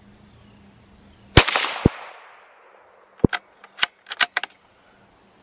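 A single rifle shot with a ringing echo that fades away over about a second, followed shortly by a lighter knock. About two seconds after the shot comes a quick run of sharp clicks.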